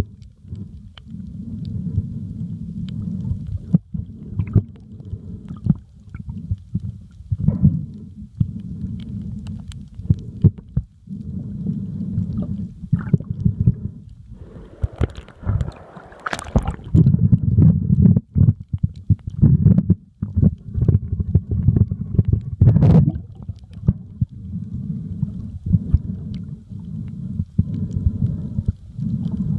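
Muffled underwater sound from a camera held below the surface: a low rumble of moving water, with scattered sharp clicks and crackles. A louder rush swells about halfway through.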